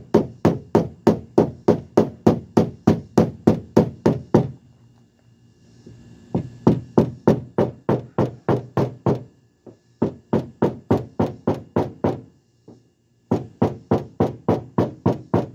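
Hammer tapping quickly on a wooden block held against a Buick's door panel, about four or five light knocks a second in four runs with short breaks between them. The taps knock the dent's creases down to take compression out of the metal before it is pulled.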